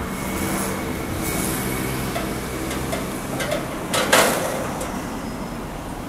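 Vintage bonnet bus engine running steadily at idle after start-up, a low even drone, with a brief louder burst about four seconds in.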